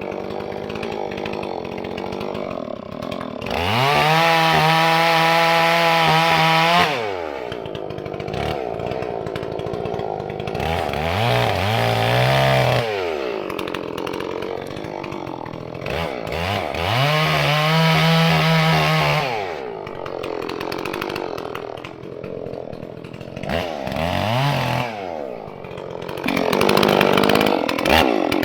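Holzfforma G466 two-stroke chainsaw (a Stihl 046/460 clone) run up to full throttle and held there for a few seconds, then dropped back to idle. This happens twice, with shorter blips of the throttle in between.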